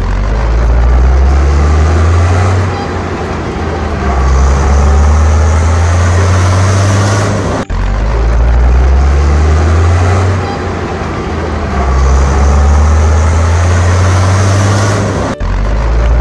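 Off-road vehicle's engine running low and heavy, easing off and building up again. The same stretch of sound repeats, with a brief cut about every eight seconds.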